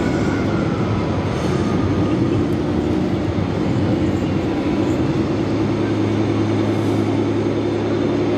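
Radio-controlled model timber crane working, its hydraulic pump and motors giving a steady mechanical running noise. A low, steady hum joins about five and a half seconds in.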